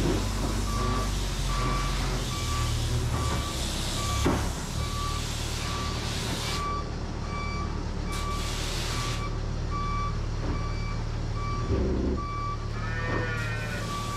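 Telehandler's reversing alarm beeping in an even series over its diesel engine running steadily; the beeps stop near the end.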